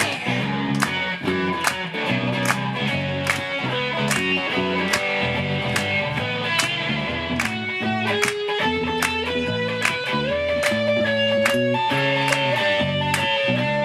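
Live rock band playing an instrumental break, with no singing: guitar over bass and drums, keeping a steady beat.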